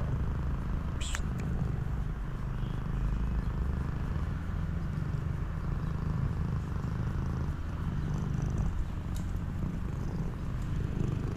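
A cat purring steadily, a continuous low rumble.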